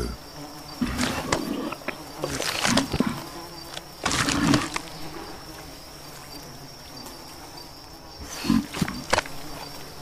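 Komodo dragon gulping down a whole leg of prey, hoof and all: irregular heaving swallowing noises every second or few seconds, over a steady high insect drone.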